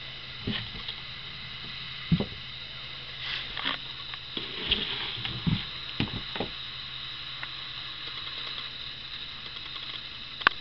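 Scattered short knocks and clicks, about eight in all and louder about two seconds in and near the end, over a steady background hum.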